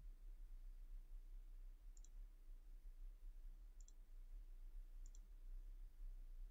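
Faint computer mouse clicks, three of them one to two seconds apart, each a quick press-and-release tick, over a steady low hum.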